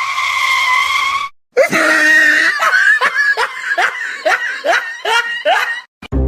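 A loud, high-pitched shriek held for about a second and a half, then a rapid series of about ten short cries at roughly two a second, each rising in pitch, like hysterical laughter.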